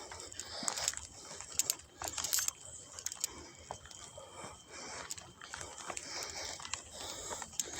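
Irregular crunching and rustling in dry leaves and brush, most likely footsteps of someone walking through undergrowth, with a faint steady high tone underneath.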